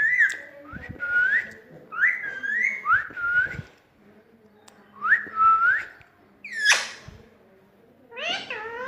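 Rose-ringed parakeet whistling: a run of short whistles, each sweeping sharply up and then levelling off, about seven in the first six seconds, then one sharp rising screech near the seven-second mark.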